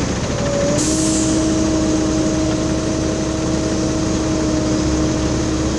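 Heavy diesel engine of a road recycler running steadily at close range, with a steady mechanical whine that comes in about a second in and holds.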